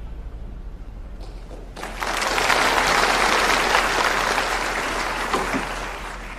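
Audience applauding. The clapping breaks out about two seconds in, swells, then gradually dies away.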